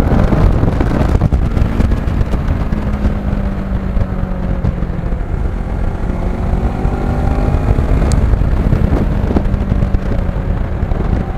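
Kawasaki Ninja 650R's parallel-twin engine running while the bike is ridden, with heavy wind rush on the onboard microphone. The engine note holds fairly steady, with small rises and falls in pitch as the throttle changes.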